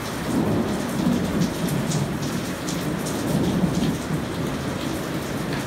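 Heavy rain mixed with small hail coming down hard, a dense steady hiss of drops on surfaces with scattered sharp ticks of hailstones.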